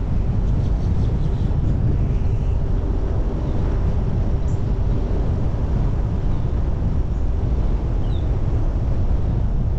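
Car driving along a road: a steady low rumble of road and wind noise.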